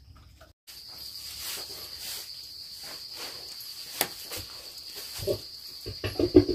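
Night insects, crickets, chirping steadily as a continuous high ring, cutting in abruptly about half a second in. Near the end comes a run of low, quick knocks.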